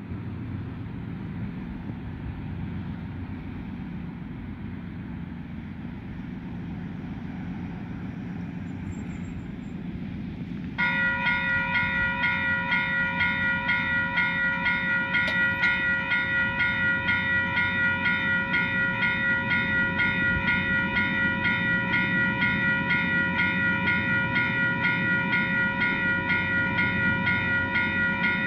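Level crossing warning bells start suddenly about eleven seconds in and ring in a fast, even beat, over a low steady rumble from the approaching train.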